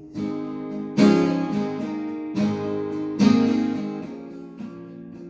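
Guitar strumming chords between sung lines, each chord ringing out and fading. The strongest strums come about a second in and just past three seconds.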